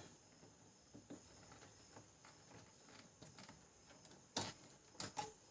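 Mostly very quiet, with a few faint clicks and then sharper clicks and knocks about four and five seconds in: hands and a screwdriver working on a laser printer's casing as its screws are taken out.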